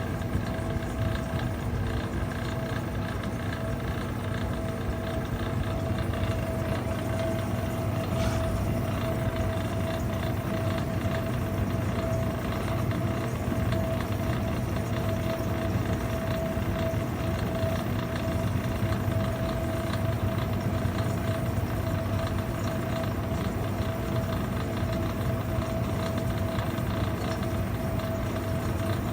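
Vintage Electrohome dehumidifier running steadily: the compressor hums under a quite noisy fan motor, with a steady mid-pitched tone over the drone.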